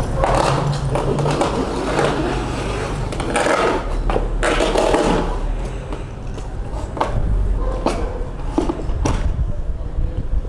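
Street noise: a steady low rumble with scraping swells and scattered knocks, as heard through a hand-held phone microphone on the move.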